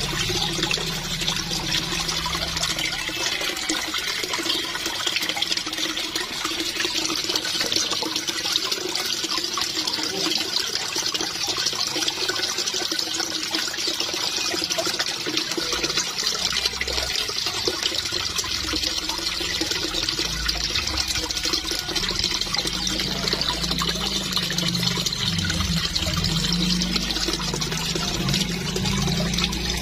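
Steady splashing of water: a stream pouring into a koi pond while koi thrash at the surface taking food pellets.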